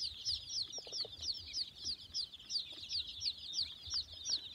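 A brood of young chicks peeping all together: a steady stream of high, short, falling cheeps, several a second and overlapping.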